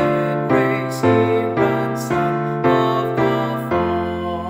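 A piano or keyboard plays a hymn tune in full chords, changing chord about twice a second, then holds one long chord near the end.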